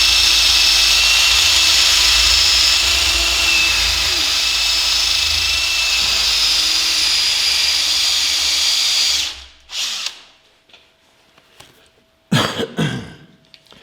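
Handheld electric power tool spinning a small wire brush against a steel truck frame, stripping surface rust, with a steady high whine. It stops about nine and a half seconds in.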